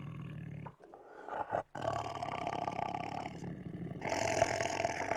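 Tiger growling in a series of rough growls: one fading out just after the start, then a long growl about two seconds in, and a louder one near the end.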